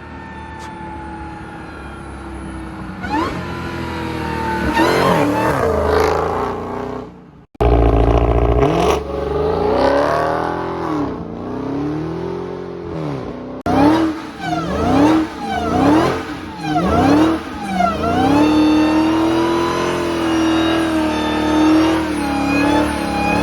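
Supercharged V8 of a 2020 Dodge Charger Hellcat, fitted with a Legmaker carbon-fibre cold air intake, revved again and again, its pitch rising and falling with each blip, with supercharger whine on top. The sound breaks off abruptly twice. From about two-thirds of the way in the engine holds a steadier pitch.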